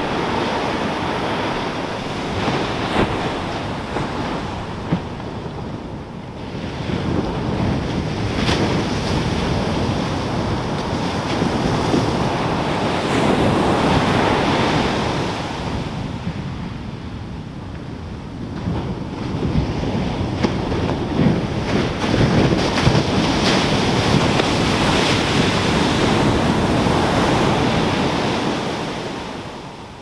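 Ocean surf breaking on a sandy beach, a loud rushing wash that swells and fades in long surges, with a lull between them.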